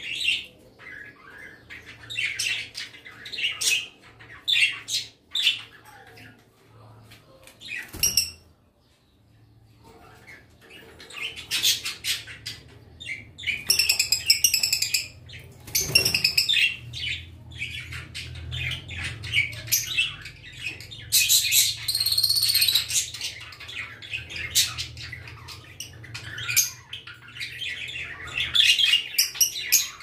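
Small pet birds chirping and calling in short, quick, repeated notes, falling nearly quiet for a moment about nine seconds in. A faint steady low hum runs underneath.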